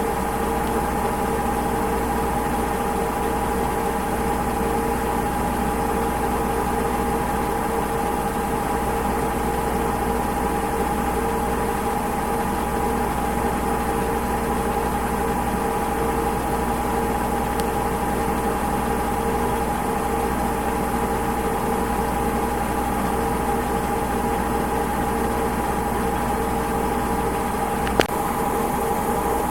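Washing machine running steadily, a constant motor hum with a steady whine, and one sharp click near the end.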